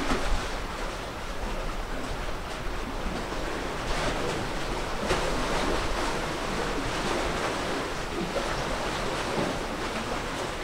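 Sea water washing in waves, with wind: a steady hiss that swells briefly a few times.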